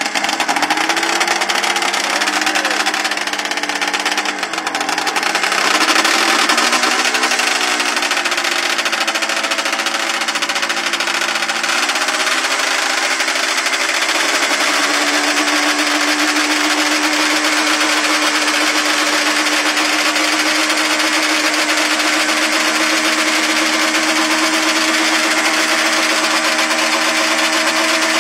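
1970s Chaparral snowmobile's two-stroke engine running just after it finally starts, revving up and down unevenly for the first several seconds, then settling into a steady idle from about fifteen seconds in.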